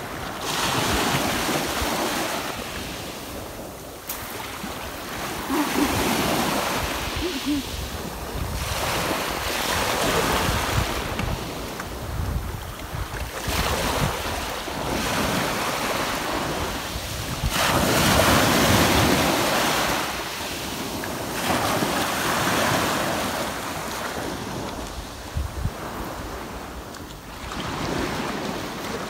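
Small sea waves washing onto a stony, sandy shore, the surf swelling and drawing back every few seconds, with wind buffeting the microphone.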